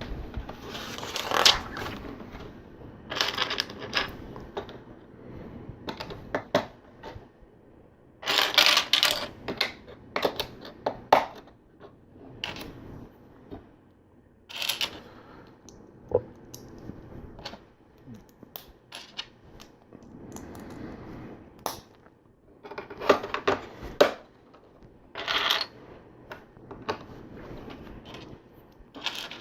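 Plastic LEGO pieces clattering and clicking in irregular bursts as loose parts are picked through and bricks are pressed together, with quieter pauses between.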